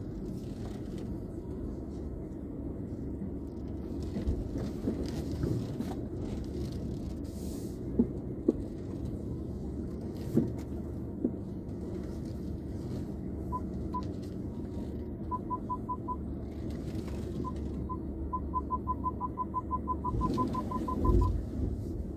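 A car's parking sensor beeping in short, same-pitched pips while the car moves into a parking space. The pips start past the middle, spaced out at first, then come faster and faster until they run almost together near the end, warning that an obstacle is getting close. Under them is the steady low hum of the car heard inside the cabin, with a few knocks in the middle.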